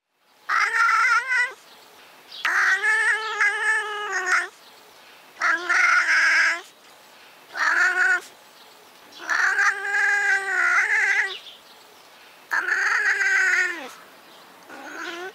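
European wildcat yowling: about seven drawn-out caterwauls, each one to two seconds long with short pauses between, the last one fainter and cut off.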